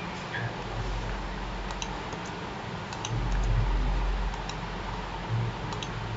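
A few scattered clicks of computer keyboard keys, some in quick pairs, over a steady low background hum.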